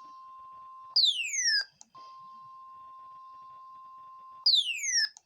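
NOAA Weather Radio's steady 1050 Hz warning alarm tone, sounding ahead of a severe thunderstorm warning. It is cut twice by a loud falling chirp, a whistle-like tone that drops quickly in pitch for under a second.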